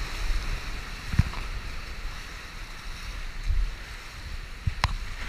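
Whitewater rushing and crashing around an oar raft running a big rapid, with wind buffeting the microphone. Two sharp knocks, one about a second in and one near the end.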